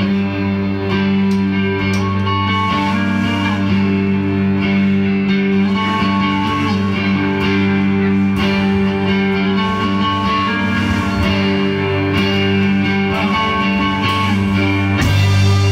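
Instrumental rock played live by a band: electric guitars and bass hold sustained, droning chords over drums and cymbals. The band swells a little near the end.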